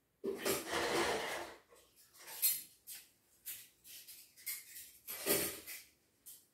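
Small plastic Lego pieces being handled and clicked together: a run of short, irregular rattles and rustles.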